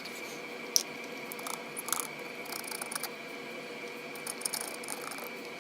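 Scattered small clicks and rustles of handling, with one sharper click under a second in, over a faint steady high whine.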